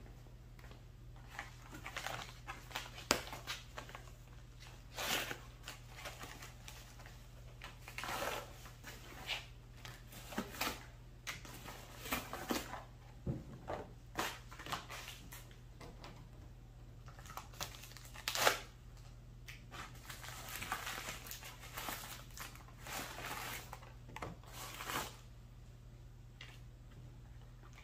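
Cardboard parts boxes and paper packaging handled and opened by hand: irregular rustling, crinkling and tearing with small knocks, over a steady low hum.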